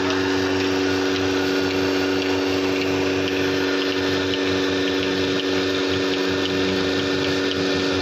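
Mobile bucket milking machine running: the steady hum of its vacuum pump, with a regular ticking from its pulsator that comes through about halfway in.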